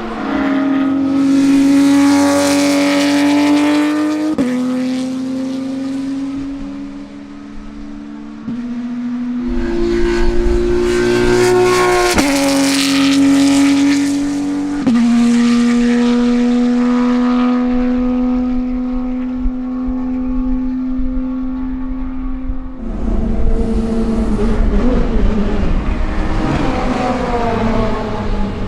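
Porsche 911 GT America racing flat-six at high revs, its engine note holding and then jumping in pitch at several sudden steps as the sequential gearbox shifts. Near the end the sound turns rougher and noisier.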